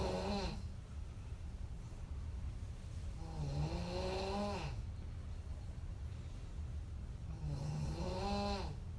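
A woman snoring hard in deep sleep. One snore ends about half a second in, then come two more long snores about four seconds apart; each has a pitched tone that rises slightly and drops off at the end. A steady low hum runs underneath.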